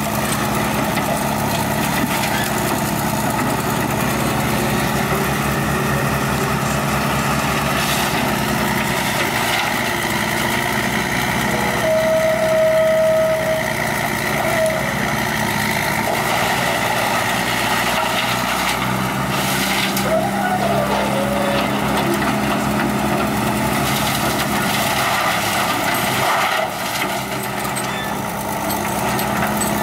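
Heavy diesel machinery running steadily: an excavator working at a wood-waste grinder, engines and grinding mixed into one continuous din, with a brief steady whine about twelve seconds in.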